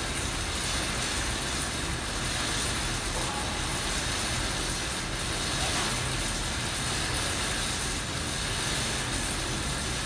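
Steady droning background noise with a low hum, even throughout, with no distinct knocks or clanks.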